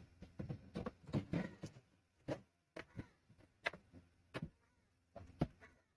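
Cardboard carton being unpacked: packing tape peeled and torn off and the flaps pulled open, a run of short, sharp scrapes and crackles with brief pauses between them.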